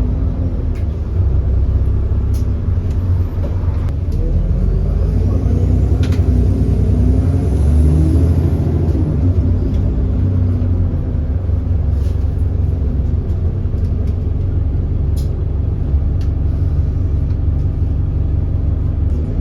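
Bus diesel engine, a 6.7-litre Cummins ISB, heard under load as a deep, continuous rumble whose pitch rises and falls several times as the bus pulls away and changes speed. The engine has an exhaust leak. A few sharp clicks or rattles come through over the rumble.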